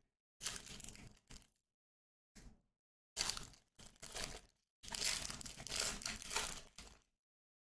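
Clear plastic cello wrapper of a trading-card pack crinkling and tearing as it is pulled open by hand, in several short bursts that stop about seven seconds in.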